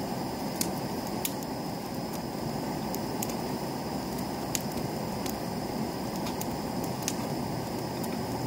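Firewood burning in an open fire pit, with sharp crackles and pops at irregular moments, about one a second, over a steady low rush.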